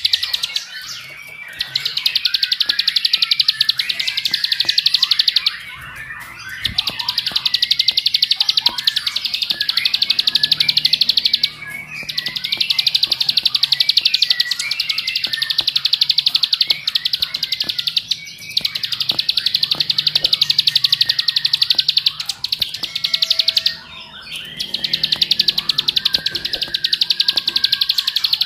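Plain prinia (ciblek sawah) singing its fast, continuous rattling trill ('ngebren'), in about five long runs of four to six seconds each with short pauses between.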